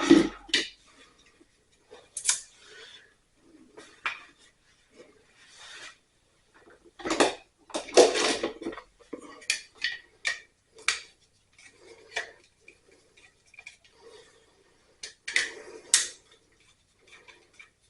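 Metal tools and electrical hardware clinking, scraping and rattling in irregular handling noises as a dryer outlet is worked on, with louder clusters of clatter about seven to eight seconds in and again near the end.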